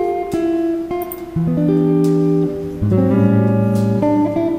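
Background music: plucked acoustic guitar with strummed chords, notes changing every half second or so.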